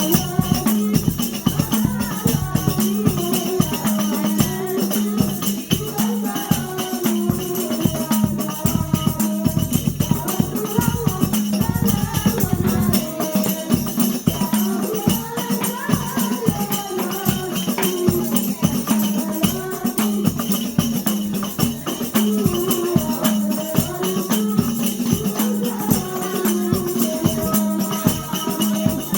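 Hadrah ensemble: rebana frame drums and jingles beaten in a fast, dense rhythm under a group of voices singing a devotional melody in unison.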